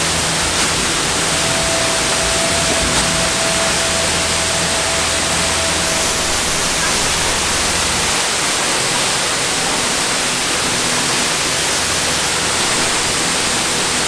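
Steady, loud rush of a waterfall pouring into a rocky plunge pool.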